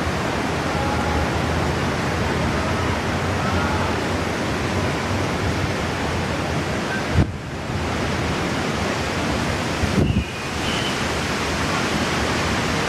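Steady rushing noise of strong typhoon wind, with two brief knocks, about seven and ten seconds in.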